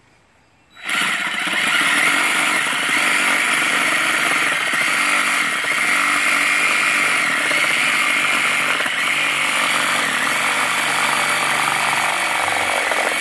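DeWalt DCS381 20V Max brushed cordless reciprocating saw with a 9-inch Milwaukee wood blade cutting through a 2x4. It starts about a second in and then runs loud and steady.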